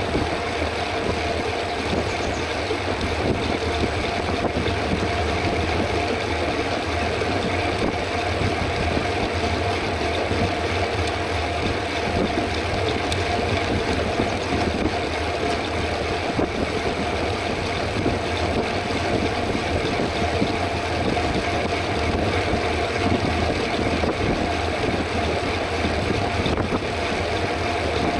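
Steady wind rushing over the microphone with road and tyre noise from a mountain bike riding at speed, unbroken throughout.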